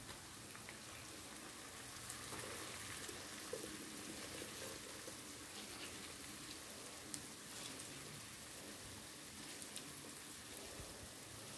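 Food sizzling gently in a pan: a faint, steady crackle with scattered small pops.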